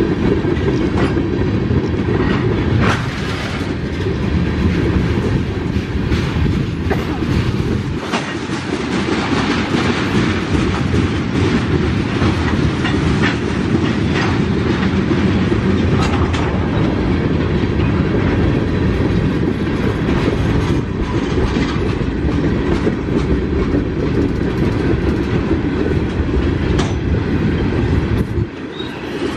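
Freight train of railroad tank cars rolling steadily past close by: a continuous heavy rumble of steel wheels on rail, with scattered clicks and clacks as the wheels cross rail joints. There is a brief lull near the end.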